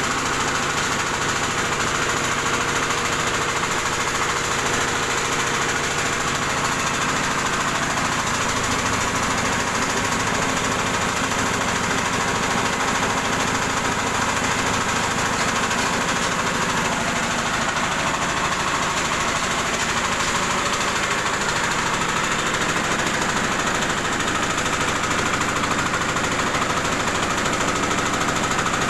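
Rice huller running steadily under load, hulling paddy, with the rattle of milled rice pouring out through its chute. The noise is dense and even, with no change in speed.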